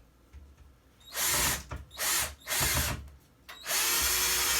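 Power drill driving a screw into sheetrock: three short bursts about a second in, then a longer steady run near the end as the screw is sunk.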